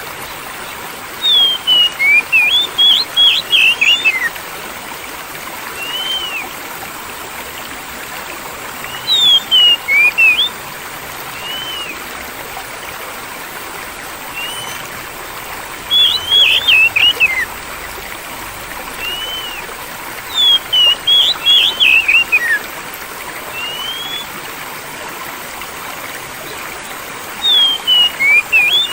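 Steady running water, a stream trickling, with a songbird's bursts of quick whistled chirps repeating about every five or six seconds and single short notes in between.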